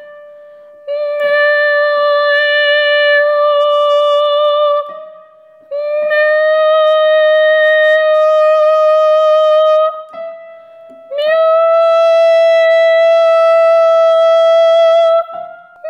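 A classically trained female voice sings three long held notes with vibrato, each about four seconds and each a small step higher than the last. It is a maschera resonance exercise, the singer widening the resonance as she climbs.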